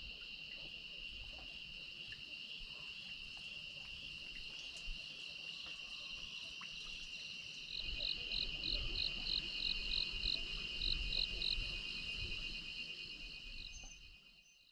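Insects chirping in a steady high trill. About halfway through, a second, louder chirp joins, pulsing about three times a second. The sound fades out near the end.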